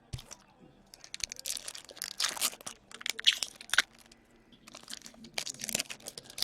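Foil wrappers of hockey card packs being torn open and crinkled, with sharp clicks of cards being handled, in irregular bursts from about a second in and again near the end.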